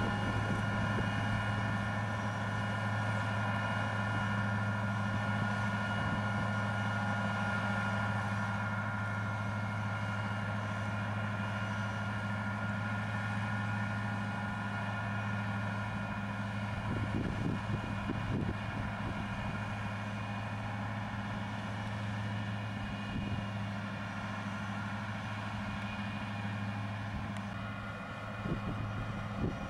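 Tractor engine running steadily while pulling a mounted drainage tile plow, with a steady high whine over the engine hum. A few knocks and rattles come about seventeen seconds in and again near the end.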